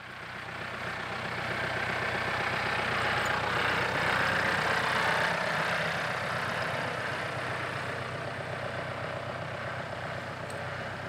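A motor vehicle's engine running, with a steady low hum; the noise swells to a peak about four to five seconds in and then slowly fades, as if the vehicle comes close and moves away.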